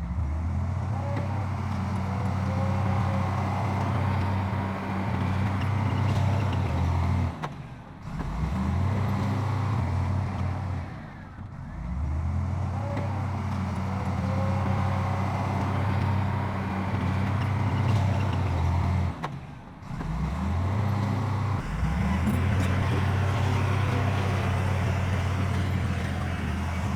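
Heavy earthmoving machine's diesel engine running steadily under load. The sound drops out briefly and picks up again several times, about a third, halfway and three quarters of the way through.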